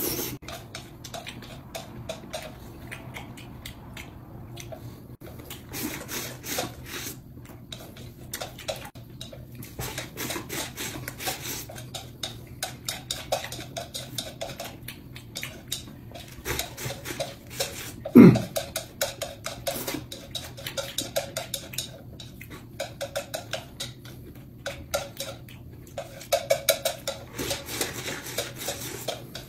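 Eating sounds: chopsticks clicking and scraping against a rice bowl as rice is shoveled in, with chewing in between. One louder low sound, falling in pitch, about eighteen seconds in.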